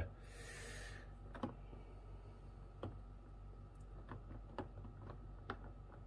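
Faint, scattered clicks and light taps of electrical cables and plastic connectors being handled, with a short rustle at the start.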